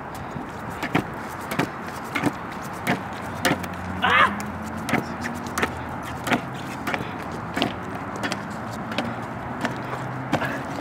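Pro scooter rider doing barspins nonstop: sharp clacks of the scooter landing and the bars being caught, at a steady pace of about three every two seconds.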